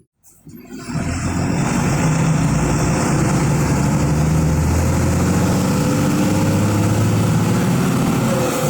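Diesel engine of a Volkswagen 17.210 EOD bus running steadily, a low drone whose pitch shifts only slightly. The sound drops out for a moment at the very start.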